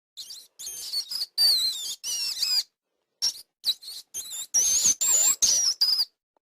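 Rat squeaking: a run of shrill, wavering squeaks in short clusters, with abrupt cuts to silence between them, one around three seconds in and another near the end.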